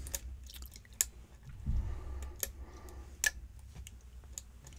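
Steel lock pick working the pins of a pin-tumbler challenge lock under tension, with a handful of sharp, irregular clicks as the pins lodge into place, the loudest about a second in. A dull low bump of handling comes just before the two-second mark.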